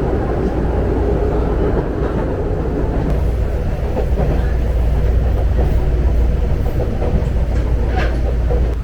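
Passenger train running: a steady low rumble of the moving train, with a short sharp click near the end.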